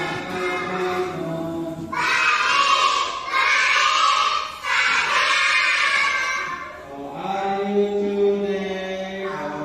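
Background vocal music: voices singing together in long held notes, swelling louder in the middle.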